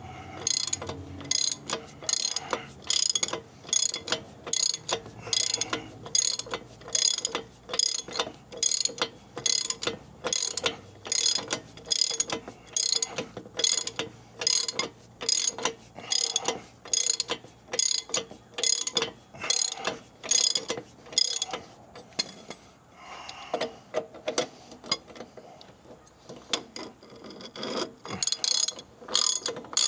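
Socket ratchet wrench worked in quick, even strokes, about one and a half a second, tightening the U-bolt nuts that pull down a truck's rear leaf-spring suspension. The strokes pause for a few seconds past the middle and start again near the end.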